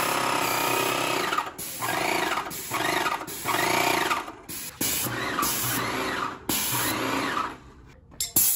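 Graco Magnum LTS 15 airless paint sprayer running, its piston pump whining up and down with each stroke about once a second, with brief breaks between strokes.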